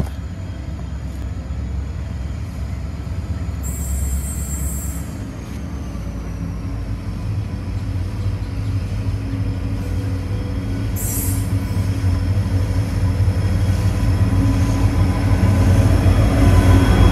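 Freight train hauled by diesel-electric locomotives, C class C509 leading, approaching and drawing alongside. The engines run with a steady low hum that grows gradually louder, loudest near the end as the lead locomotive passes close by.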